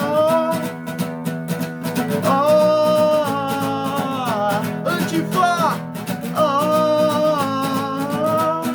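Music: a guitar-backed song with a steady beat and long held melody notes, with the word 'Antifa' sung about halfway through.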